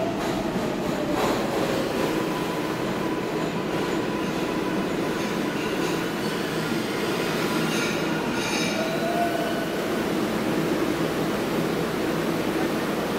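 New York City subway 6 train pulling into the station and slowing to a stop: steady rumble of wheels on rail with a motor whine falling in pitch at the start, and a brief high wheel squeal a little past the middle.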